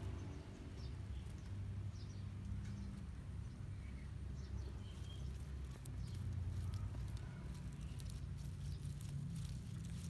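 Outdoor ambience: a low steady rumble with a few brief high chirps and scattered faint clicks that grow more frequent in the last few seconds.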